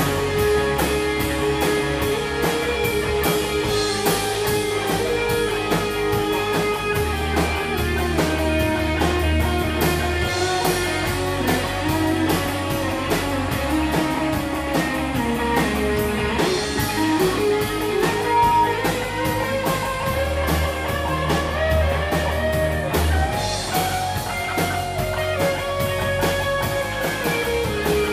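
Live rock band playing an instrumental passage: electric guitar lines with notes bending up and down over bass and drum kit.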